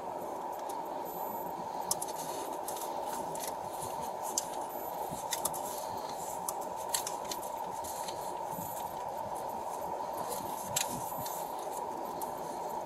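A steady low hiss with a few scattered light clicks, about ten in all, spread across the whole stretch.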